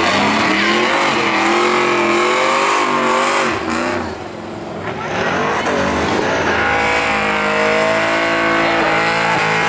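Pickup truck engine revving hard while its rear tires spin in a smoky donut, the pitch wavering up and down. About four seconds in the sound briefly drops, then a second pickup does the same, its engine held high and steadier.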